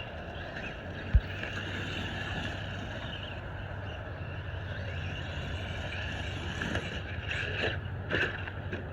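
Traxxas Maxx electric RC monster truck running on a 3S battery: steady motor and drivetrain whine with tyre noise. A dull low thump comes about a second in, and a few short louder bursts near the end.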